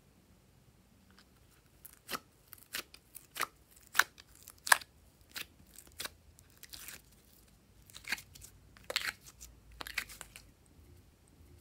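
Purple slime being pressed and pulled out of a silicone ice-cube tray, giving a string of sharp, irregular clicks and pops that start about two seconds in. The loudest pop comes about halfway through, and a softer crackle follows around seven seconds.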